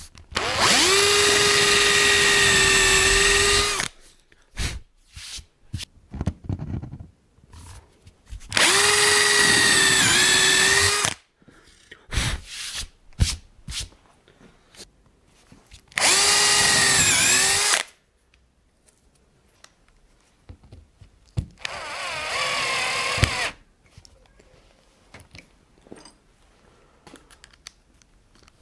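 A drill runs in four separate bursts of two to three seconds each, boring holes into a beech cabinet panel. Its motor note dips a little as the bit bites, and the last burst is quieter. Light clicks and knocks of handling fall between the bursts.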